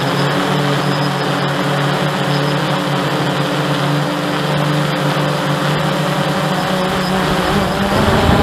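Hubsan quadcopter's motors and propellers humming steadily in flight, as picked up by the drone's onboard camera. The tone shifts and a lower hum comes in near the end.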